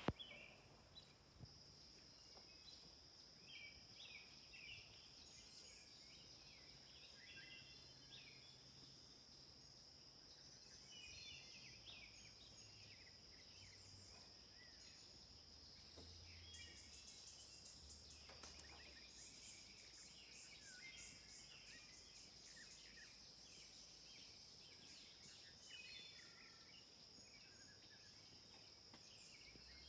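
Faint woodland sounds: a steady, high-pitched insect drone, with scattered short bird chirps.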